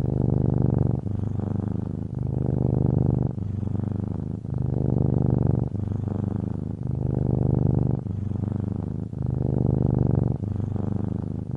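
Domestic cat purring close up, deep and continuous. It swells and eases in alternating phases about a second long as the cat breathes in and out.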